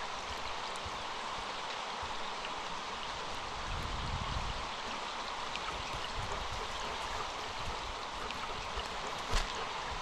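Small, shallow forest stream flowing steadily over its bed. One sharp click sounds about nine seconds in.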